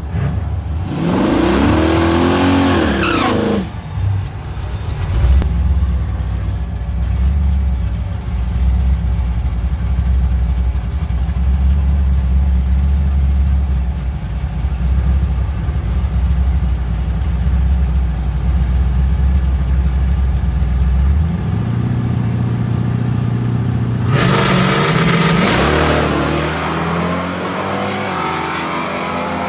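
Nitrous-fed V8 in a Chevrolet Blazer drag truck. It revs a few times, then idles steadily for a long stretch. Near the end it launches at full throttle and pulls away down the strip, the sound falling away with distance.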